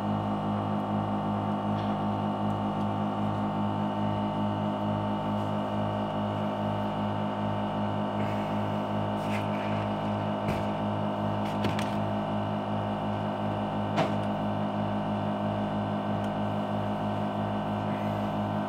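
Steady mechanical hum of an LCD separator machine's vacuum pump holding the phone screen down on the hot plate, with a few faint clicks in the middle.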